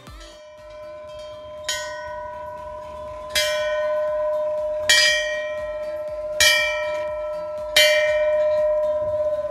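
A bell struck five times at an even pace, about once every one and a half seconds, each strike ringing on into the next.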